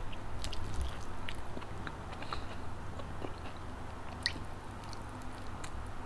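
Close-miked chewing of a mouthful of rice eaten by hand, with many small wet mouth clicks.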